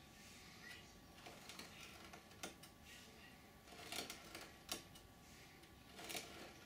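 A scalpel cutting the thin flashing of a cast foam part along a steel ruler: faint scraping with a few light clicks, the clearest a bit over two seconds in, around four seconds, just before five and about six seconds in.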